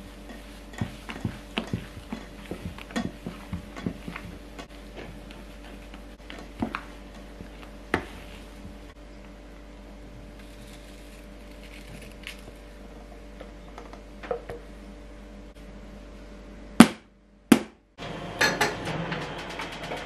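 A utensil tapping and scraping against a stainless steel mixing bowl as meringue is folded into matcha cake batter, a quick run of light knocks over the first several seconds. Later come two loud sharp knocks about half a second apart, then a short metallic clatter near the end.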